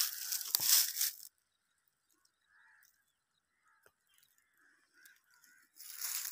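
Dry, crackling crunch of cut mustard stalks and stubble underfoot for about the first second, then near silence, with the crunching returning near the end.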